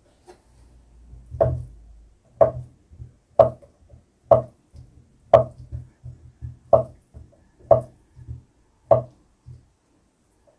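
Kitchen knife chopping slices of Spam into cubes on a wooden cutting board: about eight sharp knocks roughly a second apart, with softer taps in between.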